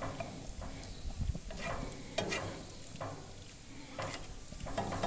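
Tongs scraping and stirring macaroni in a small frying pan on a gas grill, in a series of short, irregular scrapes about one or two a second, over the faint sizzle of the macaroni frying in butter.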